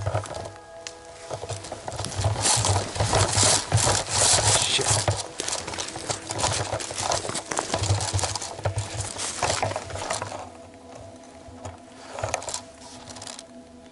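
Rustling and rubbing of clothing, gear and undergrowth close to the microphone, with low footfall thuds a few times a second, as a player pushes through forest brush; the noise eases off after about ten seconds and a short scuffle comes near the end.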